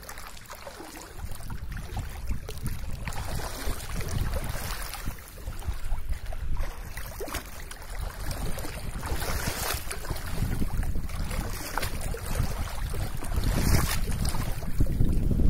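Gusting wind on the microphone, with floodwater lapping around a small boat as it drifts along.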